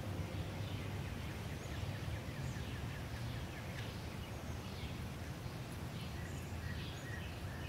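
Outdoor evening ambience: a steady low background hum with faint, scattered bird chirps, including a quick run of high ticks a couple of seconds in.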